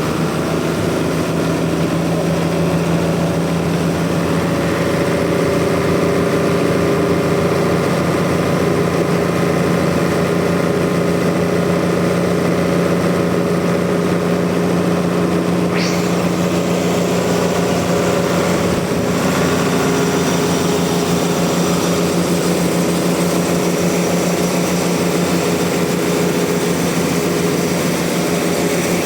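Sawmill engine running steadily, with one brief high squeak about halfway through.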